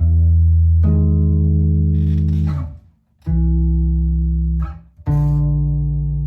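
Fender electric bass through an amp, playing long held low notes with flatwound strings: a note joined by a second about a second in, then two more sustained notes after short gaps.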